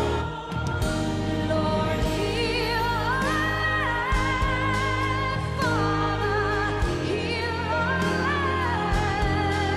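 Christian gospel song: a sung melody with vibrato, held notes and gliding pitch, over steady instrumental accompaniment with a sustained bass.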